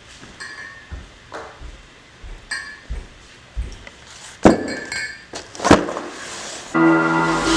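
A string of hard clinks with short ringing tones, mixed with dull knocks, as of small hard objects being handled and set down, the two loudest clinks about four and a half and five and a half seconds in. Music with held tones and a deep bass comes in near the end.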